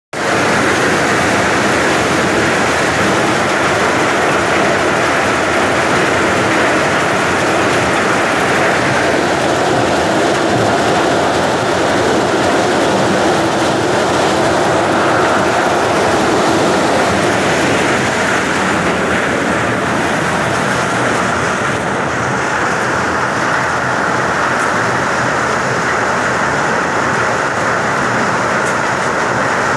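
Kamdhenu maize sheller with a cob conveyor running steadily under load, a loud continuous mechanical rattle with shelled corn kernels pouring out of its chute.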